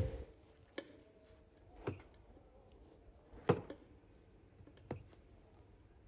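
Four light knocks over about four seconds, the third the loudest, against a quiet room.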